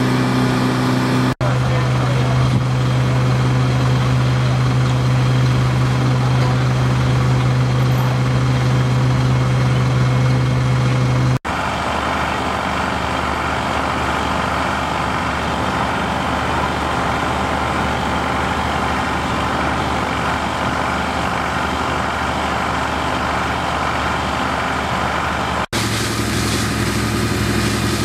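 Fire-engine and fire-pump engines running at a steady drone. The pitch changes abruptly three times where the sound cuts from one machine to another.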